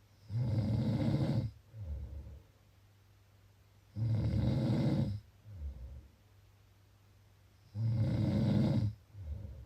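Snoring in a slow, even rhythm: three loud rasping snores about four seconds apart, each followed by a shorter, softer one.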